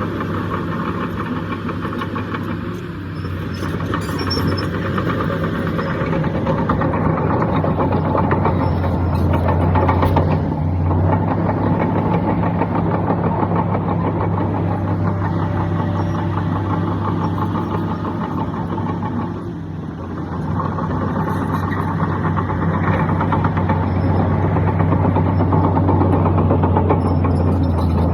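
Heavy diesel engine of earthmoving machinery running steadily with a deep hum, easing off briefly about three seconds in, around ten seconds and again near twenty seconds.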